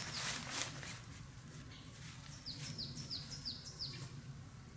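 A songbird singing a short phrase of five quick, high, down-slurred notes about two and a half seconds in. There is brief rustling near the start.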